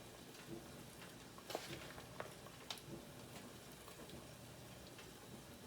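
Heavy-cream Alfredo sauce simmering faintly in a pot as cheese is stirred in, with a few light clicks and taps scattered through.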